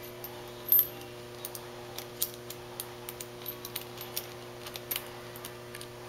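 Steel tire chain links and hook clinking in the hands as the hook is unhooked and moved up one link to tighten the chain: a scatter of light metallic clicks and jingles. A steady low hum runs underneath.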